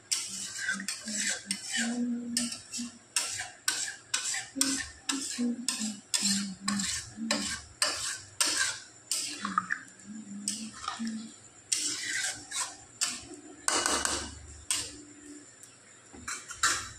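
Metal spatula stirring and scraping egg curry in an aluminium kadhai, a quick run of repeated metal-on-metal scrapes and clinks about two a second, with a brief lull about two-thirds through.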